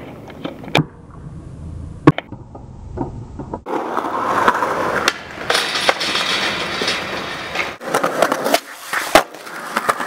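Street skateboarding on concrete and metal rails: polyurethane wheels rolling, with several sharp clacks of the board popping, landing and slapping the ground, the loudest about two seconds in.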